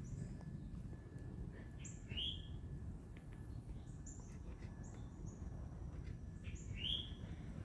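Wild birds calling: scattered short high chirps and two louder slurred calls about five seconds apart, over a steady low rumble.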